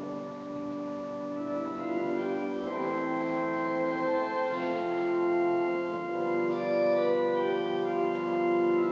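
Organ playing slow, held chords, the notes shifting every second or so.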